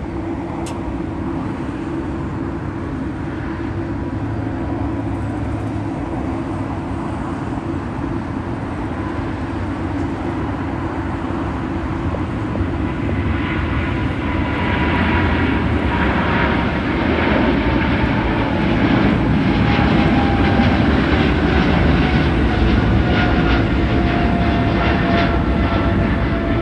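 Boeing 777 freighter's GE90 turbofans at takeoff thrust: a steady deep rumble that grows louder about halfway through as the jet lifts off. From then on it carries a rough crackle and a whine that slowly falls in pitch as the aircraft climbs away.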